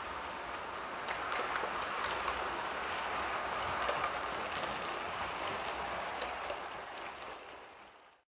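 Model passenger train running along the track, a steady rolling hiss of the wheels on the rails with small clicks, fading out near the end.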